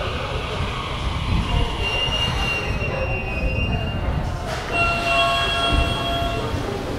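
Toyo Rapid Railway 2000 series electric train pulling into an underground station platform and slowing, with low rumbling running noise. A steady high-pitched squealing tone is heard about two seconds in, then several squealing tones at once from about five seconds in as it comes toward a stop.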